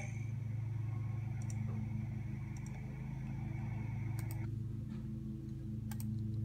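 A steady low hum with a few faint, short clicks scattered through it.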